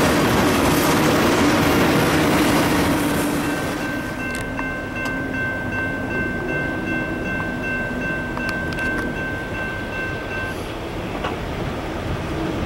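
Freight train tank cars rolling past with steady wheel rumble; about three and a half seconds in this gives way to a railroad grade crossing's electronic bell ringing in even, repeated dings as the crossing gates come down, the bell stopping about ten and a half seconds in.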